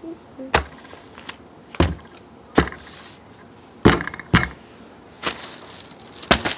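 Kitchen clatter: a series of about seven sharp knocks and clacks, spaced irregularly, as things are handled and set down while a sandwich is being put together.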